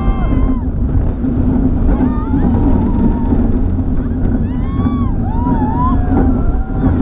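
Mack Rides giant looping steel roller coaster train rumbling down the drop and into its vertical loop, with wind buffeting the microphone. Riders' screams and shouts rise and fall over it a few times, loudest about five seconds in.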